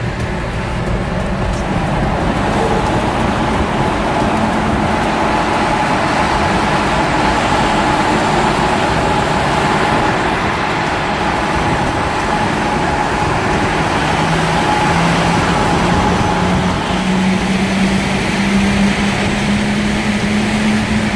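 Nissan Patrol Y60 cruising at motorway speed through a road tunnel, heard from inside the cabin: steady engine, tyre and road noise. A low engine tone climbs slowly through the second half.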